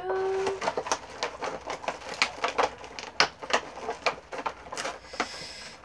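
Clear plastic packaging crinkling and crackling in irregular sharp clicks as a small figurine is worked out of it by hand. A brief steady tone sounds at the very start.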